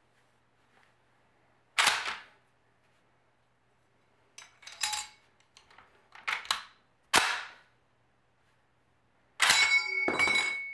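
M1 Garand rifle's action worked by hand: a series of sharp metallic clicks and clacks as the receiver is thumbed and the bolt slams, with one loud clack about seven seconds in. Near the end comes a loud clack as the en bloc clip is ejected, leaving a high ringing ping that hangs on.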